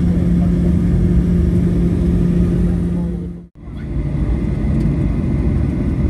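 Jet airliner cabin noise: a steady rumble of the engines and airframe with a low hum. It drops out briefly about halfway through, then comes back without the hum.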